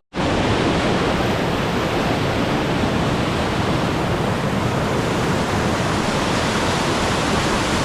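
Mountain waterfall in spate after heavy rain: water pouring down over rock with a loud, steady rushing noise that cuts in sharply at the start.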